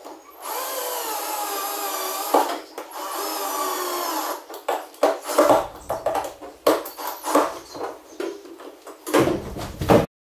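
Cordless drill-driver driving a fastener into a roof-rack fitting. It gives two long runs of motor whine whose pitch sags as the fastener tightens, then short stop-start bursts, clicks and a few knocks. The sound cuts off suddenly near the end.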